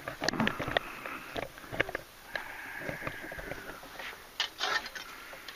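Spinning fishing reel being cranked and handled while a hooked gar pike is reeled in: a run of clicks, then a faint steady whir about two seconds in, and a few more clicks near the end.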